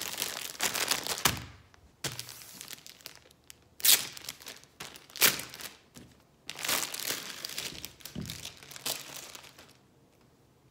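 Plastic packaging of a hair bundle crinkling and rustling as it is handled and the hair is pulled out, with two sharper crackles about four and five seconds in.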